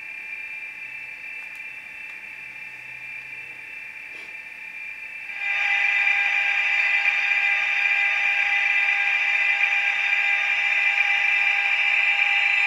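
Sound decoder of a Trix H0 model DB class 147 TRAXX AC3 electric locomotive playing the standing loco's electric sounds through its small built-in speaker: a steady hum of several tones that jumps much louder about five and a half seconds in, as another sound function comes on.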